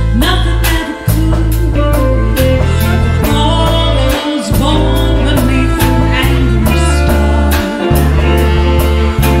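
Live band playing a song: a woman sings lead over a steady drum beat, bass, guitar and violin.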